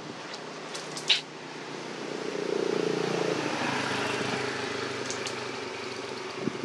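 A motor vehicle's engine hum swells over a couple of seconds and then slowly fades, like a vehicle passing by. There is a single sharp click about a second in.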